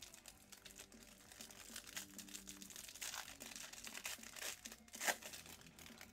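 Clear plastic wrapper of a 2021 Absolute Baseball card pack being torn open and crinkled by hand, with the loudest crackle about five seconds in.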